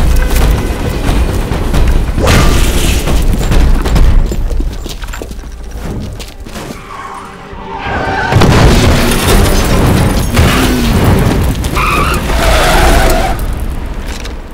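Action-movie soundtrack: dramatic music under heavy booms. It dips quieter about halfway through, then swells back up loud.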